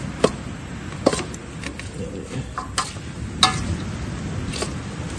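Utensils clinking and tapping against cookware during outdoor cooking: about five sharp taps spread over a few seconds, over a steady low hiss.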